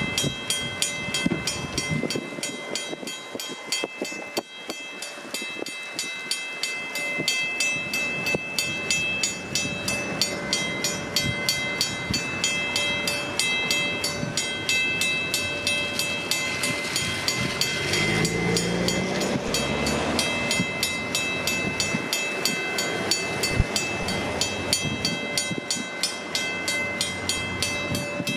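Railroad grade-crossing signal bells ringing continuously with the gates down, several bells overlapping in a fast, even clang. They include a Western-Cullen-Hayes mechanical bell. About two-thirds of the way through, a brief, lower sound with a wavering pitch swells over the bells.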